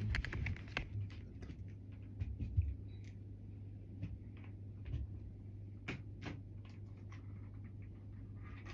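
Scattered small clicks and soft rustles, a cluster of them in the first second and a few more around the middle, over a steady low hum.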